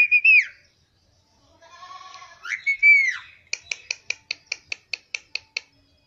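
A caged green ring-necked parakeet calling. A short loud squawk comes at the start, then a longer wavering call that ends in a loud screech about three seconds in, then a rapid even run of about fifteen short chirps, some six a second.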